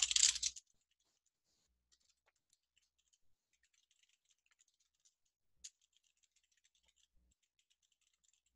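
Faint computer keyboard typing: a quick run of light keystroke clicks, with one louder click about five and a half seconds in.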